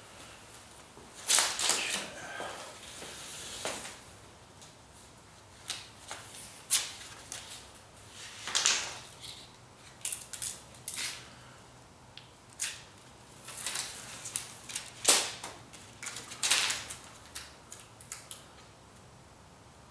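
Foil tape being pulled off the roll, torn and pressed down along the seams between the panels: irregular crackling and rustling strips of noise, with the loudest rip about fifteen seconds in.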